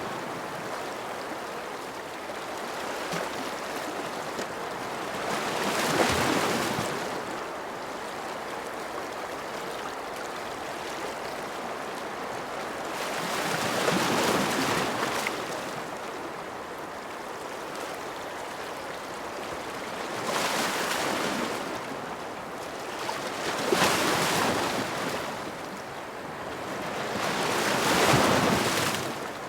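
Ocean waves washing ashore over a steady hiss of surf. About five swells rise and fall, the loudest near the end.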